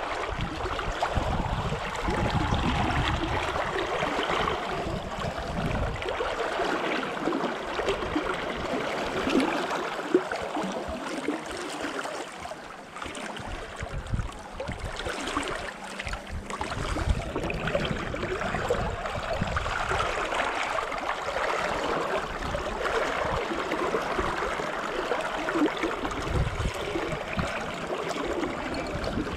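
Flowing river water, a steady rushing and gurgling, with low rumbles coming and going underneath.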